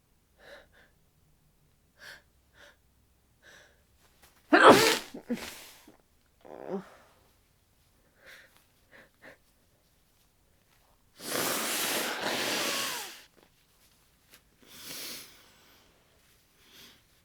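Head-cold sneezing and nose-blowing: a few congested sniffles, then one sharp, loud sneeze about four and a half seconds in. Later comes a long nose blow into a tissue lasting about two seconds, followed by more sniffs.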